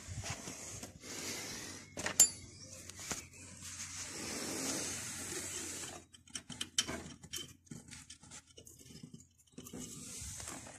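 Small metallic clicks and scrapes from metal gearbox parts being handled, with one sharp metal clink that rings briefly about two seconds in and a stretch of rustling in the middle.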